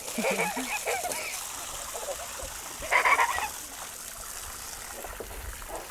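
Garden hose spraying water into a plastic kiddie pool with steady splashing, under excited children's voices in the first second and a loud, high squeal about three seconds in.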